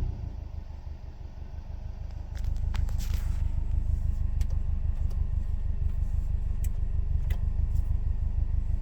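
Subaru Forester's flat-four engine idling through a modified aftermarket exhaust, a steady low pulsing drone that drops briefly near the start and comes back louder about two seconds in, with a few sharp clicks over it. The engine has a knock at idle, logged by the knock sensor, but here it is hard to pick out under the exhaust.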